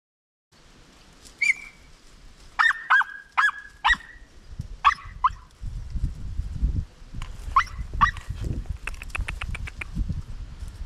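Podenco hounds giving short, high yelps, single and in quick pairs, as they hunt rabbit in the brush. A low background rumble comes in about halfway through.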